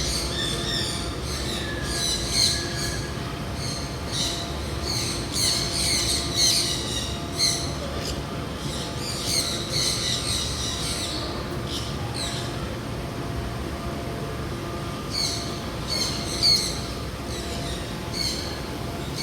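Many small birds chirping and squawking in an aviary, short high calls coming in bouts with a lull partway through, over a steady low hum.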